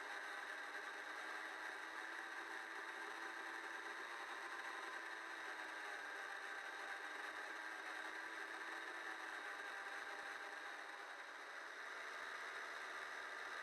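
Small motor of a radio-controlled FPV boat whirring steadily as it cruises, heard from the onboard camera, its pitch drifting gently up and down with the throttle.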